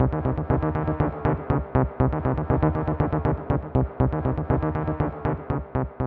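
Electronic dance music with a steady fast beat over sustained chords, starting to fade out near the end.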